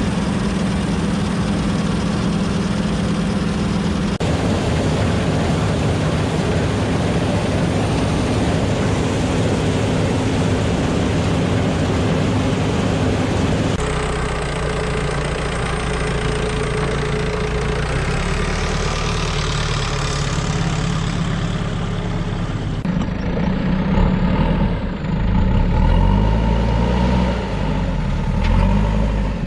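A heavy farm machine's engine running steadily. The sound changes abruptly a few times, and near the end the engine's pitch rises and falls repeatedly.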